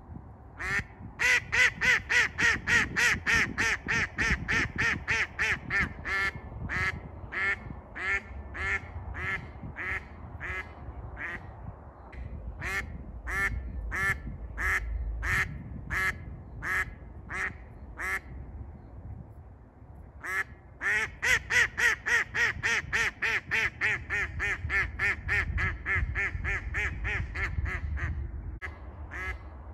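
A live decoy hen duck quacks in two long rapid series of about three quacks a second. Each series starts loud and then thins out. This is the calling series a decoy hen uses to bring a mallard drake down to land. Low wind rumble on the microphone runs underneath.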